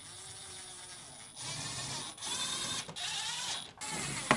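Screws being driven into a refrigerator's sheet-metal back cover with a 1/4-inch nut driver, in about four short bursts of whirring and ratcheting, ending with a sharp click.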